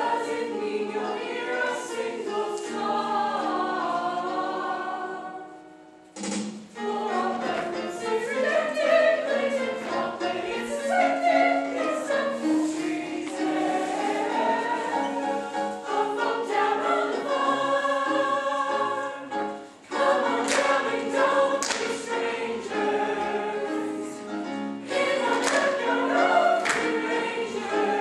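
A stage cast of teenage performers singing together as a chorus in a musical-theatre number, with two short breaks between phrases.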